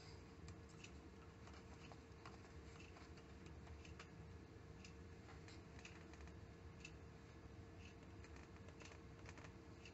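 Near silence: room tone with a faint steady hum and faint scattered ticks.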